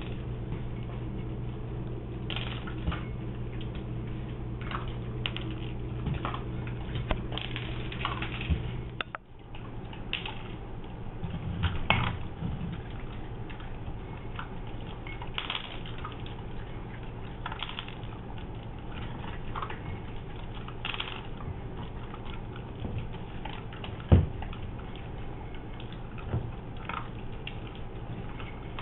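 Shiba Inus eating dry dog food from bowls: irregular crunching and clicking of kibble, with a few louder knocks against the bowls. A steady low hum lies underneath.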